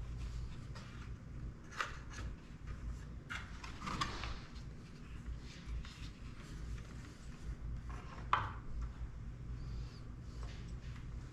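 Small clicks and rustles of hands handling wires and plastic drone parts, with a sharper click about 8 seconds in, over a steady low hum.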